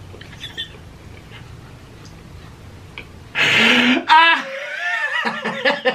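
A man laughing hard. After a few quieter seconds, a loud breathy gasp about three seconds in breaks into high, squealing laughter that turns into rapid bursts of laughter near the end.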